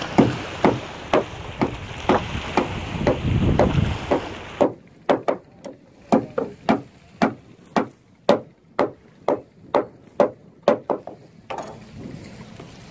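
Hammer blows on the timber of a wooden boat hull under construction, a steady run of sharp knocks at about two to three a second that stops shortly before the end. Wind rumbles on the microphone during the first few seconds.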